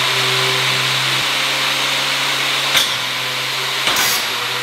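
Angle grinder with a thin cutting disc running at full speed, a steady hissing whine, with two short sharp knocks about three and four seconds in.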